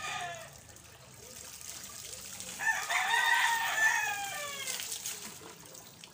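A rooster crows once, a pitched call starting a little under three seconds in, lasting about two seconds and falling away at the end. Under it, water is poured from a plastic dipper over a wet dog.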